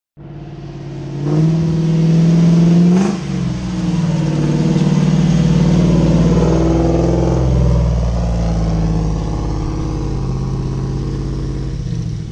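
A 4x4 pickup truck's engine revving while crawling off-road. It climbs in pitch over the first few seconds, drops abruptly about three seconds in, then settles into a steady, loud drone.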